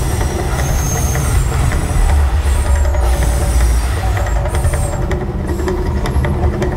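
The Mirage volcano show erupting: a deep, continuous rumble with scattered crackles and pops, as gas-fired flame jets shoot from the volcano and fireballs burst on the lagoon.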